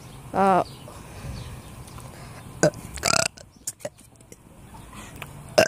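A person burping: a short, loud pitched burp about half a second in, then a low rumbling stretch. A sharp click and a brief hissing burst follow about three seconds in.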